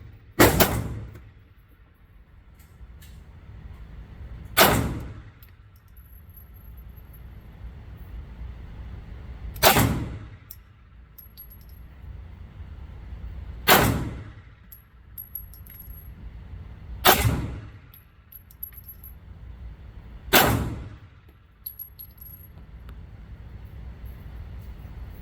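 Six slow, single shots from a 9mm pistol, spaced three to five seconds apart, each a sharp bang with a short echoing tail in an indoor range lane.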